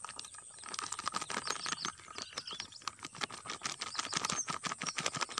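Rapid, irregular crackling and ticking of a thin plastic flour packet being squeezed and shaken as wheat flour is poured out of it.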